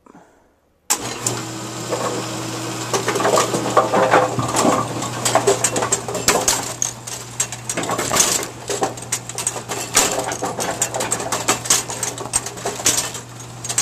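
Brunswick A2 bowling pinsetter switched on about a second in and running. A steady motor hum sits under continual metallic clatter and clicking from the turret and linkage.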